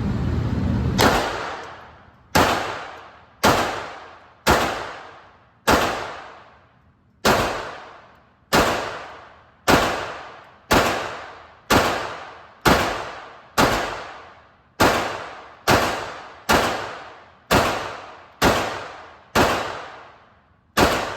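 9mm P80 Glock 26 pistol fired in slow, steady single shots, about nineteen at roughly one a second, each shot echoing and dying away in the indoor range.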